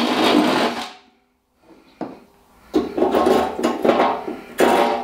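Cordless drill with a cone (step) cutter grinding through the steel lid of an ammo box, winding down and stopping about a second in. After a click, bursts of scraping and rubbing on the metal lid follow.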